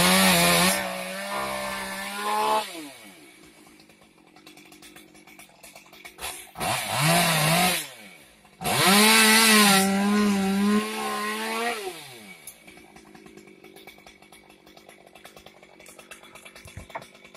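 Chainsaw run up to full speed three times, each run dropping back to a low idle. The pitch wavers during the runs as the chain bites into branch wood.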